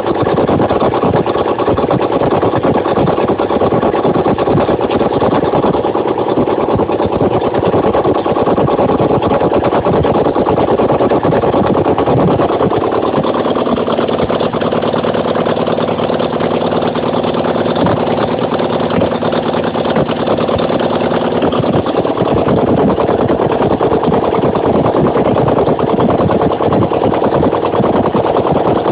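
Ural motorcycle's flat-twin engine running just after a full rebuild, with a new crankshaft, camshaft, timing gears, main bearings and pistons and rebored cylinders. It runs unevenly, settles into a steadier, even note for several seconds around the middle, then turns ragged again.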